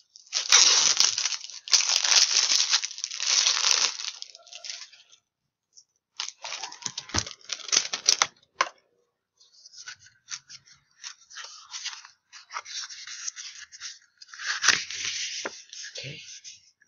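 Packaging of a new tarot card deck being torn open, with crinkling wrapping, in three stretches of tearing with short pauses between.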